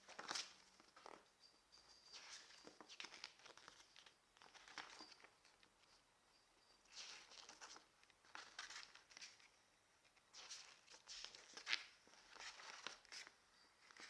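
Faint rustling and crinkling of paper and packaging being handled, in short scattered bursts every second or two, with a brief louder rustle a little before the end.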